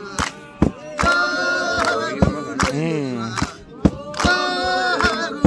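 Group of voices, mostly women's, singing a Herero traditional song unaccompanied, with sharp hand claps keeping a steady beat of about two to three claps a second.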